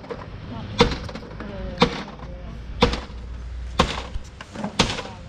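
Sugar cane being chopped with a blade on a bamboo table: five sharp chops, about one a second.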